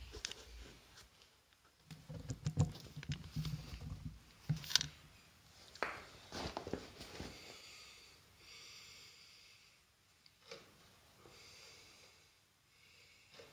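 Knocks, clicks and scraping as parts of a snowmobile's recoil starter are handled and fitted. Later come two faint whirring passes as the new starter rope is drawn slowly out of the recoil.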